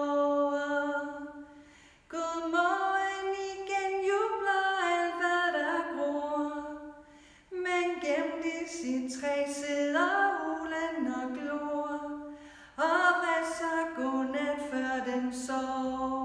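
A woman's solo voice singing unaccompanied. A held note fades out about two seconds in, then three more sung phrases follow, each after a short pause for breath.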